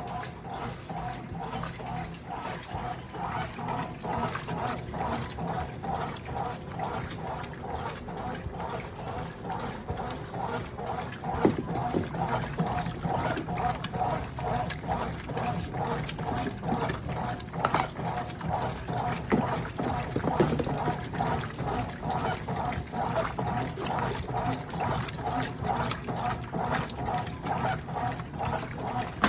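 Brastemp Clean top-loading washing machine agitating a wash load, with water sloshing back and forth in a steady, even rhythm.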